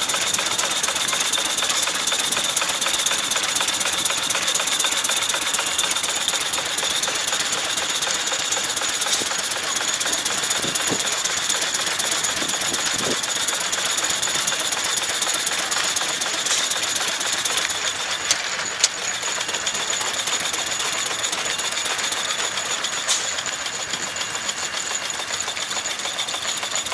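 Antique steam traction engine with a Fearless boiler giving off a steady hiss of steam, with a faint high whistle in it. A couple of sharp ticks sound in the second half.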